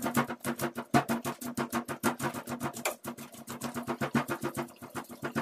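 Background music: a fast, evenly pulsing synthesizer pattern of about nine notes a second on a steady low chord, stopping abruptly at the end.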